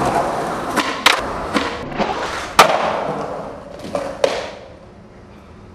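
Skateboard on concrete: wheels rolling, then a run of sharp clacks and slaps of the board and wheels hitting the ground, the loudest about two and a half seconds in. It dies away after about four and a half seconds.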